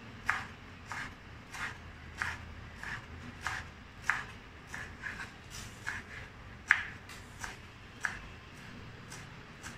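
Kitchen knife chopping fresh coriander leaves on a wooden chopping board: a steady rhythm of short, sharp knife strokes, roughly three every two seconds.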